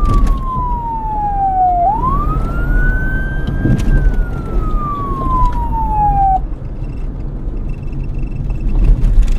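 Police car siren on a slow wail: its pitch falls, sweeps back up and falls again, then cuts off about two-thirds of the way through, leaving a low road rumble.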